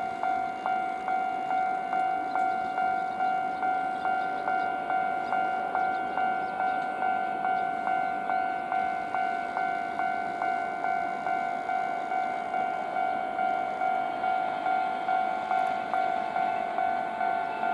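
Japanese railway level-crossing alarm bell ringing in a steady, even rhythm of repeated electronic dings. Beneath it is the faint rolling noise of a passing freight movement.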